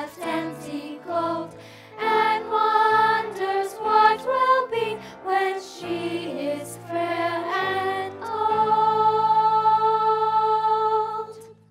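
Children's chorus singing with a small string pit orchestra: several short phrases, then a long held final chord from about eight seconds in that cuts off just before the end.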